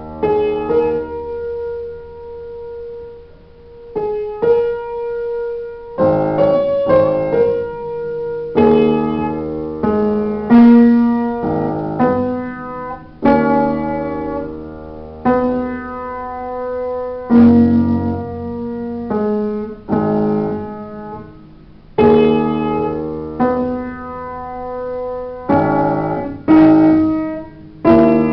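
Solo piano played at a slow pace: chords and melody notes are struck every second or two, each left to ring and fade, with the playing swelling louder and softer.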